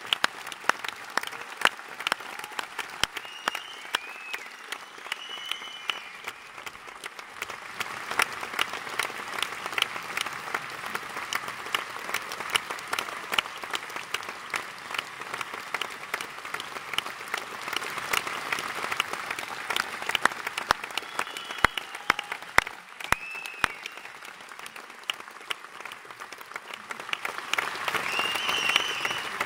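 Audience applauding a curtain call: dense, steady clapping from a full hall, with a few short high calls rising over it now and then. The clapping swells near the end.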